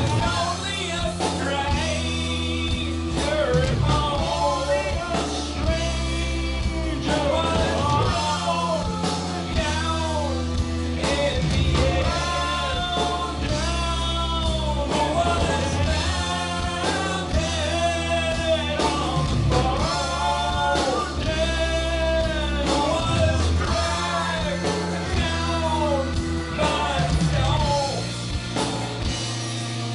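Live rock band playing, with sung vocals over electric guitars, bass, keyboards and drums.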